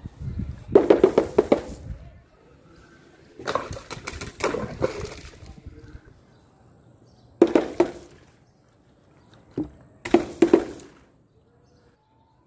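Four separate bursts of impacts and splattering, each about a second long, as objects are thrown against a wall and break.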